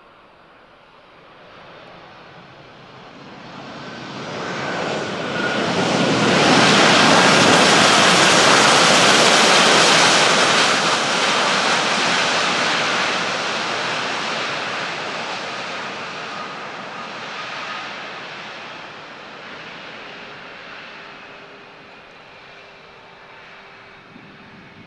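Embraer KC-390's twin IAE V2500 turbofan engines in a flyby: the jet noise swells over several seconds, is loudest about six to eleven seconds in, then fades slowly as the aircraft moves away, with a faint whine that drops slightly in pitch as it passes.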